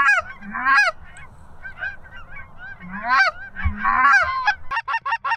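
Goose honks and clucks blown on a hunter's goose call to bring in circling flocks: loud single honks about a second apart, turning near the end into a fast run of short clucks.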